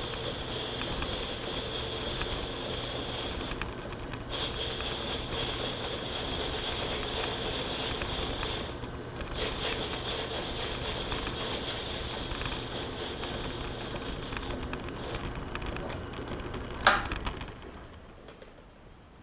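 Metal lathe running with a steady whine during single-point thread cutting. About 17 seconds in there is a sharp clack, and the machine then winds down and goes quiet.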